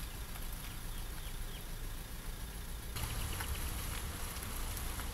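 Low, steady rumble of a Mercedes-Benz articulated city bus driving slowly, with small birds chirping faintly. The background changes abruptly about three seconds in, becoming brighter and hissier.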